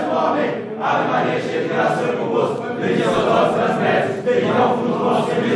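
Football team's players reciting together in unison, many men's voices chanting phrase by phrase: a group prayer in the pre-match huddle.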